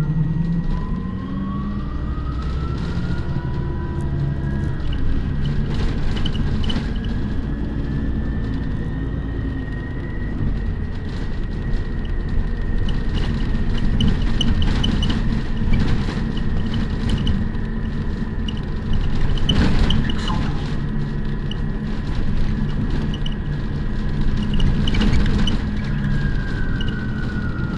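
City bus heard from inside while riding. A drivetrain whine climbs as the bus pulls away over about the first ten seconds, holds steady, then falls near the end as it slows. Under it runs a low rumble of engine and road, with a few knocks and rattles.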